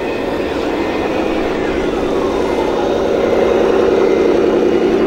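Radio-controlled model trucks and construction machines running: a steady droning hum, with a fainter whine that glides down in pitch about two seconds in.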